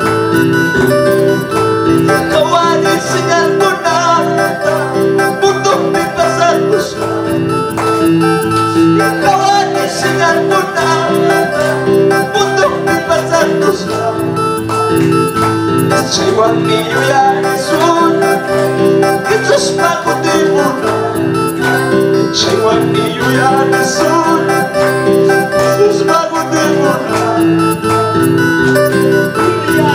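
A Christian worship song sung in Quechua by a man over an electronic keyboard accompaniment, played continuously.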